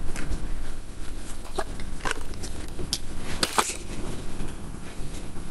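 A few light, separate clicks and knocks with some rustling, from objects being handled on a table; the sharpest knock is about three and a half seconds in.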